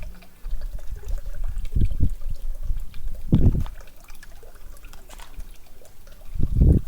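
Wind and air rushing over a small action camera's microphone as the camera is waved quickly back and forth, heard as irregular low rumbling gusts, the strongest about three and a half seconds in.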